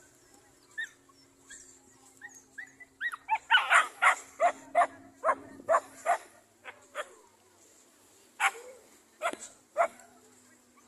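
A dog barking: a fast run of short barks a few seconds in, then several spaced single barks.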